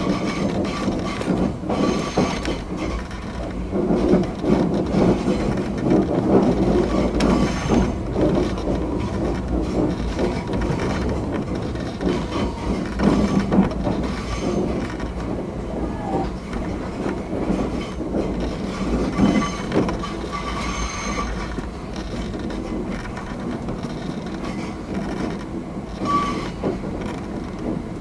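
Fujikyu 8500 series electric train running slowly, heard inside the driver's cab: a steady rumble of wheels on rail with irregular clicks and knocks, and a few brief faint wheel squeals. It grows a little quieter in the last few seconds.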